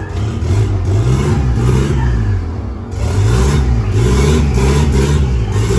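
Turbocharged engine of a Chevrolet Corsa pickup revving, its pitch rising and falling several times.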